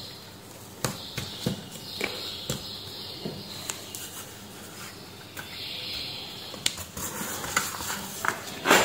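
Adhesive tape being pulled, torn and pressed down by hand on a monitor's metal back panel: crackly peeling and tearing that comes and goes, with scattered light clicks and taps and a louder rustle near the end.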